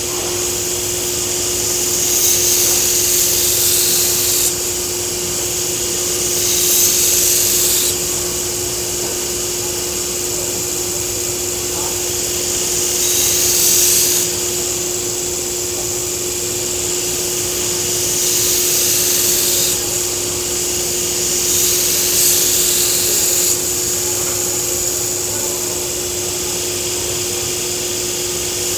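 Belt grinder running with a steady motor hum while a thin steel Takeda nakiri blade is pressed to the abrasive belt in repeated passes. Each pass adds a loud, high grinding hiss lasting one to two seconds, about six times in all, as the blade is thinned.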